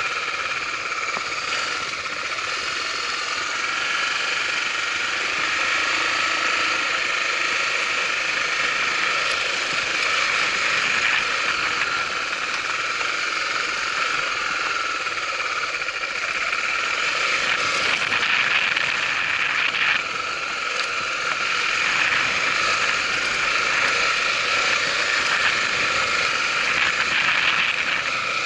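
Honda Tornado 250's single-cylinder four-stroke engine running steadily as the motorcycle is ridden, its loudness rising and falling a little.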